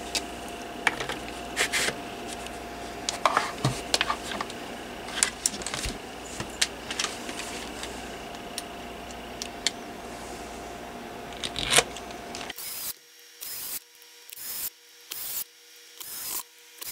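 Scattered clicks, taps and rubbing of plastic parts as the guard is fitted back onto a Honeywell HT-904 turbo fan. The sounds come irregularly, with a choppy run of short noises near the end.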